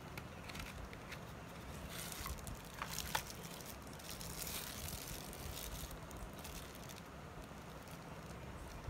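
Clear plastic packaging crinkling and rustling as a pair of combination pliers is taken out of its cardboard box and unwrapped, with a few sharp clicks about two to three seconds in.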